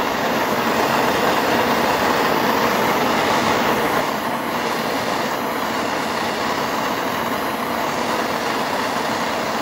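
Turbotorch TX503 propane torch flame burning with a loud, steady rushing hiss as it heats aluminum for brazing, a little quieter after about four seconds.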